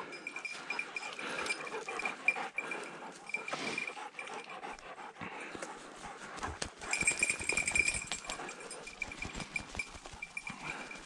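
Footsteps and brushing through forest undergrowth, with many small crackles and knocks. A thin, high, repeated ringing tone comes and goes throughout and is strongest about seven seconds in.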